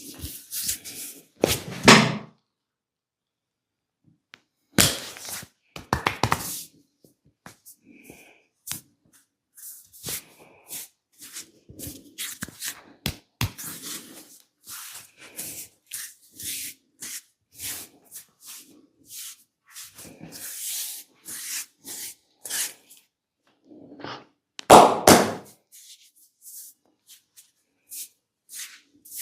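Hands working on bare skin during a massage: many quick light taps and rubbing sounds, broken by a few loud hand strikes about two seconds in, around five to six seconds in, and near the end.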